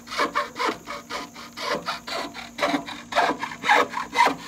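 Handsaw cutting through wood in quick back-and-forth strokes, about three a second.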